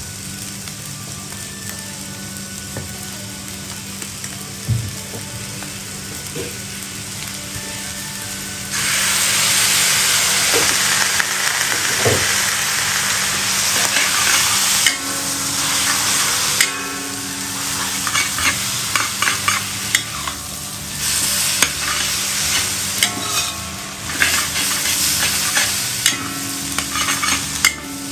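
Stir-frying in a hot pan: a steady sizzle that turns much louder about nine seconds in, as if food has just gone into the oil, with a spatula scraping and clattering against the pan as it is stirred, quickening near the end.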